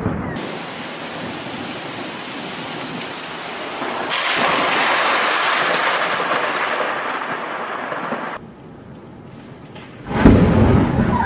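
Thunderstorm: rain hissing steadily, then a loud burst of thunder about four seconds in that dies away over several seconds, and a sharp, louder thunderclap near the end.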